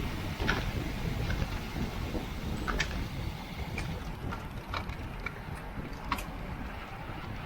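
Wind and road rumble from a racing bicycle at speed, with scattered sharp ticks and clicks from the bike.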